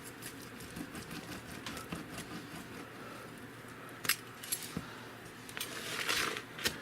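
Slicing through a deep dish pizza's crust on a cutting board: a run of small clicks and scrapes, with a sharper click about four seconds in and a rougher scraping stretch near the end.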